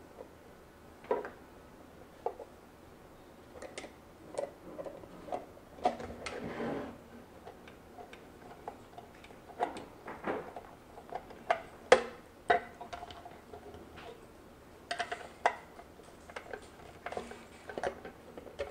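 Irregular small metallic clicks and taps as a screwdriver turns a screw through a metal camera bracket into a wooden board, with the bracket knocking against the wood as it is handled.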